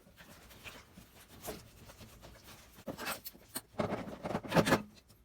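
Hands and a tool working at a stubborn rubber fuel line on a push mower's carburetor. Quiet handling at first, then about two seconds of scraping, rubbing and irregular light clicks near the end.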